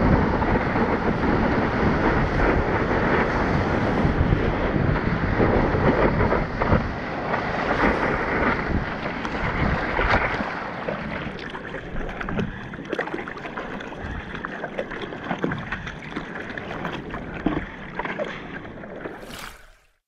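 Breaking whitewater rushing past a surfboard, with wind buffeting the board-mounted camera's microphone, loud for about the first ten seconds. It then settles to quieter water splashing around the board as the surfer paddles, and cuts off near the end.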